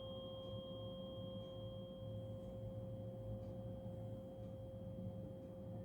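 A 528 Hz tuning fork rings on as one steady, pure tone, with a faint high overtone above it.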